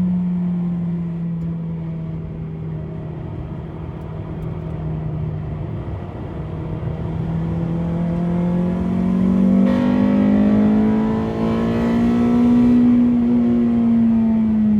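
Honda Civic EP3's K20A2 2.0-litre four-cylinder engine running under load. The revs drop at first, hold low for a few seconds, then climb steadily for about five seconds with a brief dip partway up, and fall away again near the end.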